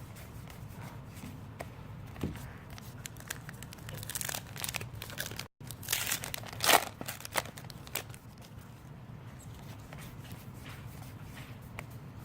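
Foil trading-card pack wrappers crinkling and tearing as packs are opened and cards are handled. The crackling comes in irregular short bursts and is busiest and loudest in the middle, with a brief break partway through.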